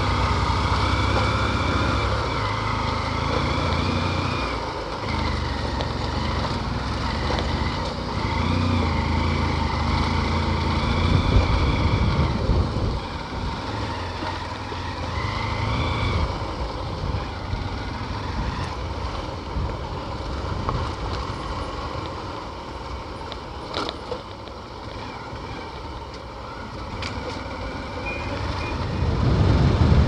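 Motorised two-wheeler running steadily as it is ridden along a road, with a continuous rumble of engine and road noise.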